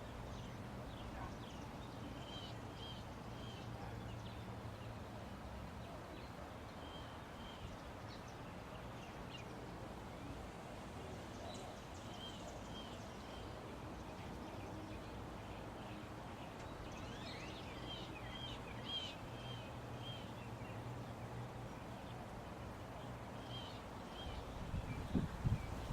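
Faint songbird calls: short high chirps repeated in small groups of two to four every few seconds, over a steady low hum. A few low thumps come near the end.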